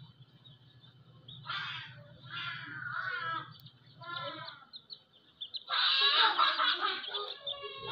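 Hen and her chicks calling: a few short bursts of calls, then a louder, denser run of calls from about six seconds in.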